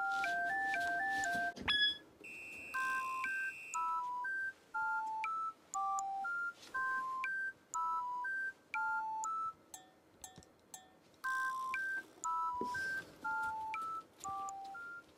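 Background music: a simple melody of clean electronic beeping tones, often two notes at once, played in short phrases with brief pauses between them.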